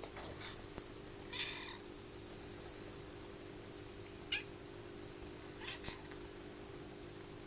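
Two young kittens meowing: a few short, high mews and one longer meow about a second and a half in, with a sharp, loud call a little past the middle. A steady low hum runs underneath.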